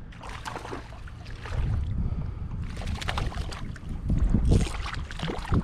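Wind noise on the microphone, with water lapping and splashing irregularly against a kayak hull.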